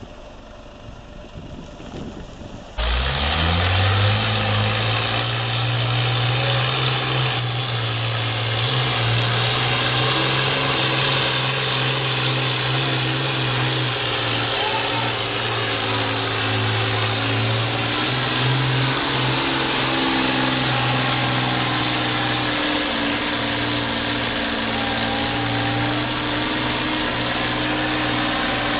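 Tractor engine running at a steady speed, loud and close. It comes in abruptly about three seconds in, with its pitch rising briefly before it settles.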